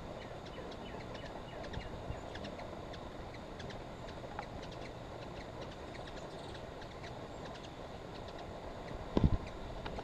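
Steady outdoor background rumble with many short, high chirps scattered through it from small birds; a single loud low thump about nine seconds in.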